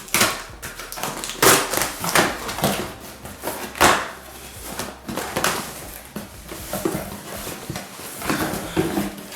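Cardboard motherboard box being opened and its packaging handled: an irregular run of knocks, scrapes and rustles.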